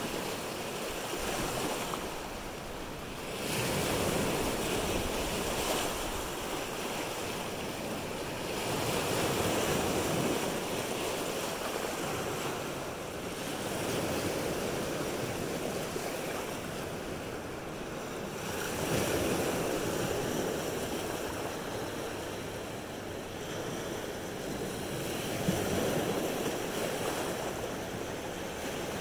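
Lake Michigan waves breaking and washing up the shore, the surf swelling and easing about every five seconds, with wind in the background. One brief knock near the end.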